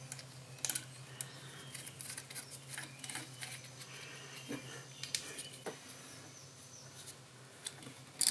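Scattered light metallic clicks and taps of wire terminals, washers and nuts being fitted onto the terminal posts of a golf cart starter generator, over a faint steady low hum.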